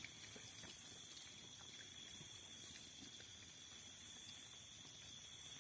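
High-pitched insect chorus buzzing in waves that swell and fade about every two seconds, over a fainter steady high whine.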